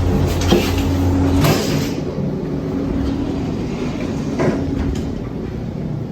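A moving vehicle's steady low rumble and hum, with a few short knocks.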